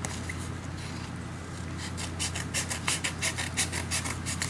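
Cardboard shipping box being scraped and torn open: rubbing and rasping, which turns about halfway through into a quick run of sharp scratching strokes, about five a second.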